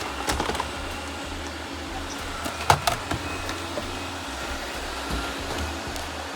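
Robot vacuum running with a steady whir and low hum. A few sharp clicks sound near the start, and the loudest two sharp knocks come about three seconds in.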